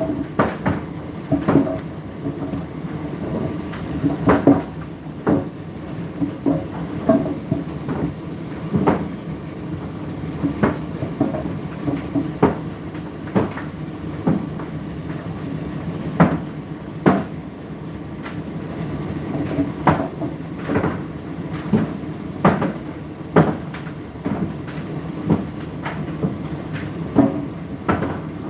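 Indesit IDC8T3 condenser tumble dryer running mid-cycle: a steady hum from the turning drum and its motor, with irregular knocks and thuds as the load tumbles.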